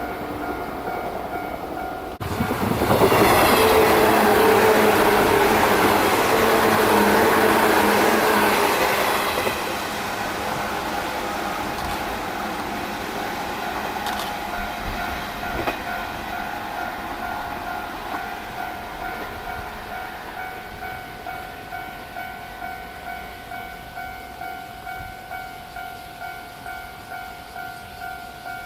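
A Japanese railway level-crossing alarm ringing in an even, rapid beat while a train passes close by. The train comes in suddenly about two seconds in, is loud for several seconds, and fades out by about ten seconds in, leaving the crossing bell ringing on its own.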